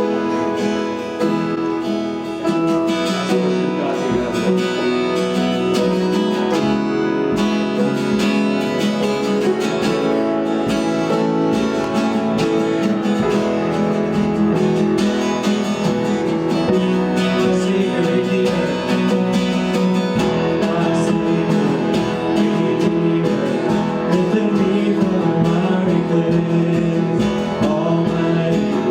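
Music led by acoustic guitar, with steady sustained chords.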